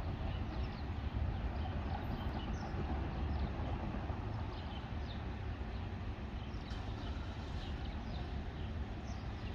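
Small birds chirping, many short high falling chirps scattered throughout, over a steady low rumble.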